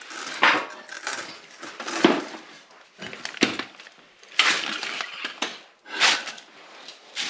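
Several irregular knocks and scrapes of hardware being worked by hand as a snowplow mount bracket is fitted under a UTV's front end, a part that doesn't seem to fit quite right.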